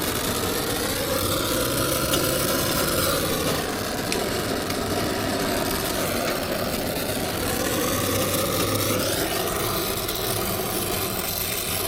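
Brazing torch flame burning steadily while it heats a compressor's copper refrigerant line joints to sweat them off; an even rushing noise that wavers a little as the flame is moved.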